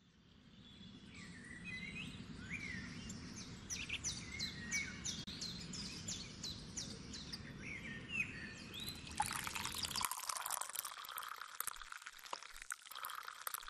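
Songbirds chirping and singing in quick repeated notes over a low background hum, fading in at the start. About nine seconds in, the birdsong gives way to coffee being poured into a mug, a splashing stream of liquid.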